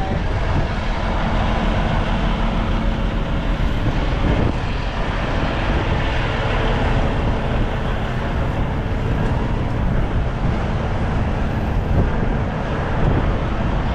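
Steady engine noise from idling vehicles, mixed with wind rumbling on the microphone in a snow squall.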